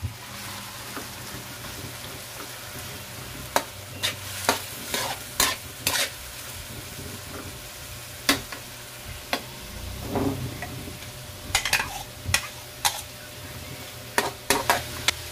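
Carrot strips sizzling in oil in a wok while a metal spatula stirs them, scraping and clinking sharply against the wok every second or so, with one dull thud about ten seconds in.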